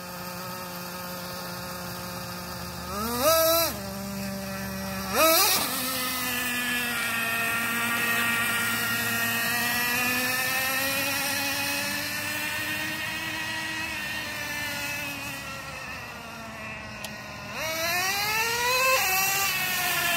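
Small nitro engine of a Traxxas Revo 3.3 RC truck: two quick throttle blips a few seconds in, then running steadily at part throttle with the pitch drifting slowly up and down, and revving up again near the end.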